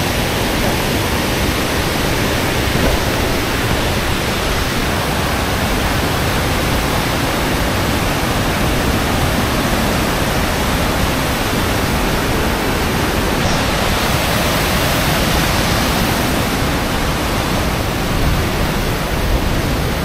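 Waterfall pouring: a loud, steady rush of falling water.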